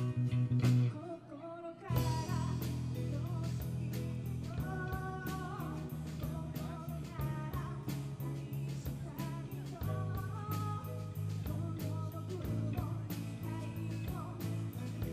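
Live rock band playing, with electric guitar, bass, drums and a singer. The band drops out for a moment about a second in, then comes back in.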